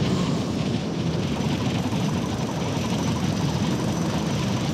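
Cartoon sound effect of a steady, churning rush of slime as a stream of green zombie vomit pours down into an underground burrow.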